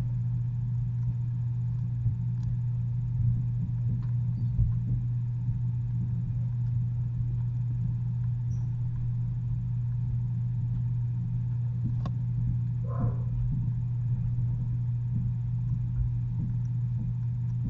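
A steady low hum, with a few faint clicks and one brief higher-pitched sound about thirteen seconds in.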